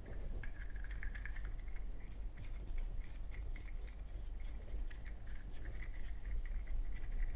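Lighter-fluid-soaked cotton swab scrubbing the metal chimney and insert of a Zippo lighter: a steady scratchy rubbing with many small ticks and faint squeaks.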